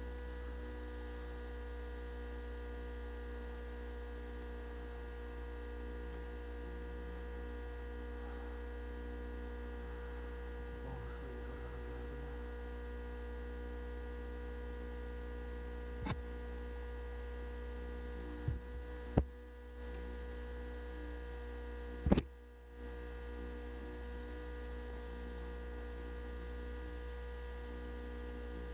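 Steady electrical mains-type hum with a stack of steady tones, running at an even level. Past the middle come three sharp clicks a few seconds apart. The last and loudest is followed by a brief drop in the hum.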